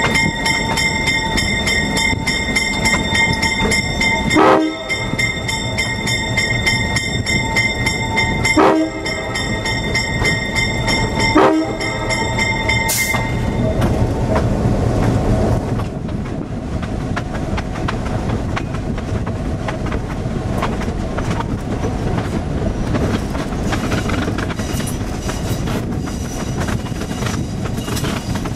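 Diesel locomotive's air horn sounding several tones at once, in four blasts with short breaks between them; the last blast ends a little under halfway through. After that comes the steady rumble of the train running on the rails, with clattering wheels.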